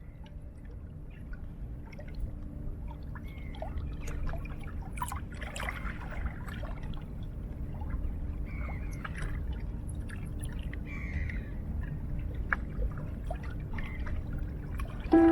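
Sea water lapping and trickling at the shore, a steady low wash with small splashes scattered through it, growing gradually louder.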